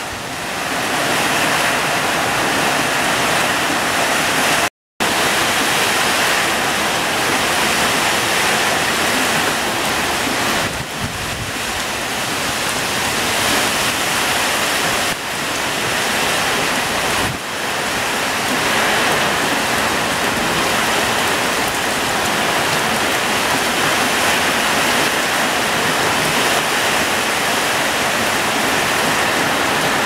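Heavy tropical rain pouring down in a loud, steady hiss, with strong wind tossing palm fronds and trees. It cuts out completely for a split second about five seconds in.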